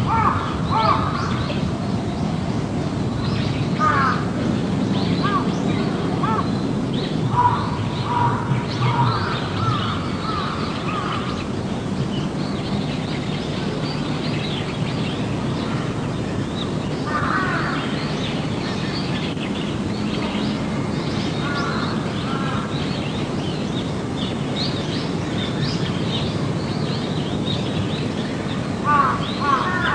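Birds calling outdoors in bursts of short repeated calls, the busiest runs near the start, in the first third and near the end, over a steady background hiss.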